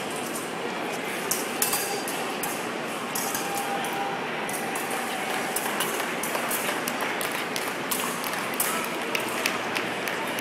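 Épée blades clinking and tapping together in short, scattered strikes as two fencers engage, over the steady murmur of a crowded hall.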